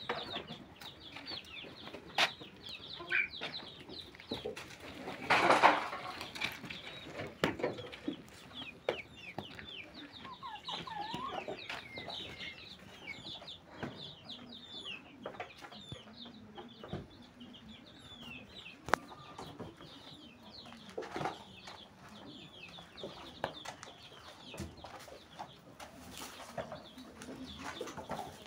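Chickens clucking, with many short high chirps throughout and a louder call about five seconds in.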